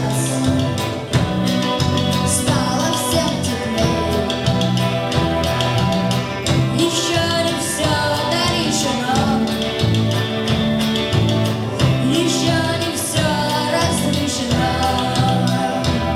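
Music: a band's song with a steady beat and bass line, with a sung voice in places.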